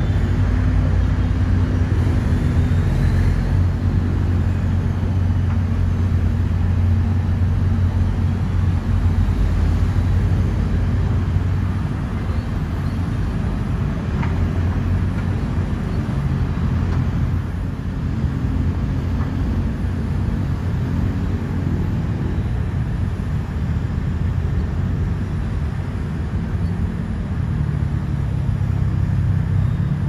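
Diesel engine of a Caterpillar wheeled excavator running, a steady low rumble that eases a little about twelve seconds in and picks up again near the end.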